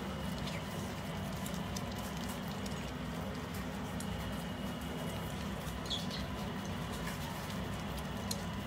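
Pet otters pattering and clicking about on a carpet, with a short high squeak about six seconds in, over a steady low background hum.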